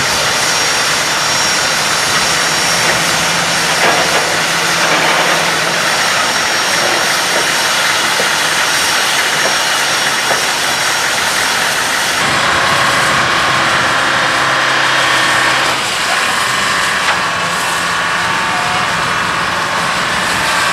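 Royal Hudson steam locomotive No. 2860 standing with steam up, giving a loud, steady hiss and rumble. About twelve seconds in, this gives way to a lower, steady engine hum.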